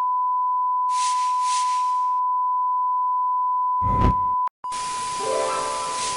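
Steady electronic test tone at a single high pitch, with a short burst of hiss about a second in, a low thump near four seconds, a brief break, then the tone going on over static noise.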